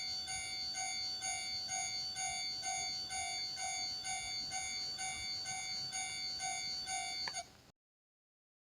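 Japanese railway level-crossing warning bell, ringing in an even pulse about twice a second, then cutting off suddenly with a click near the end.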